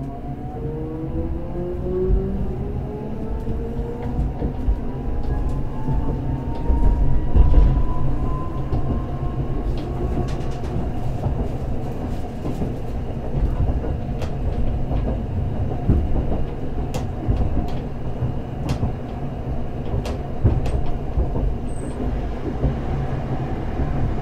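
Onboard sound of a Hakodate City Transportation Bureau 3000-series inverter-controlled streetcar pulling away: the traction motor whine rises in pitch as the car accelerates through the first ten seconds or so. After that it runs steadily, with a low rumble of the wheels on the rails and scattered clicks and knocks.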